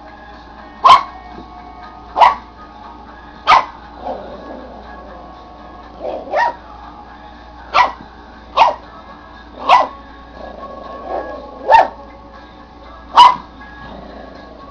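Papillon puppy barking in single sharp yaps, about ten of them, roughly one every second or so, a pair coming close together about six seconds in. Soft background music plays underneath.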